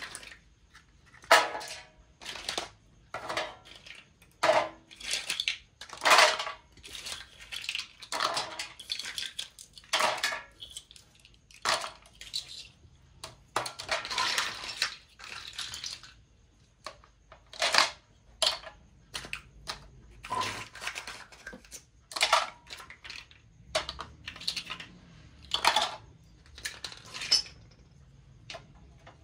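Small plastic toys dropped one after another into the bed of a wooden toy truck, clattering against the wood and against each other in a string of irregular knocks and rattles, with a longer rattle about halfway through.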